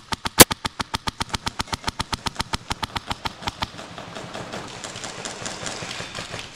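Airsoft guns firing on full auto: a fast, even rattle of about ten shots a second, with one much louder crack about half a second in. After about four seconds the shots turn fainter and are mixed with hiss.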